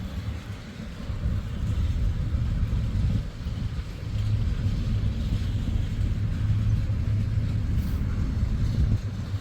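Wheeling and Lake Erie freight train's cars rolling past, a steady low rumble.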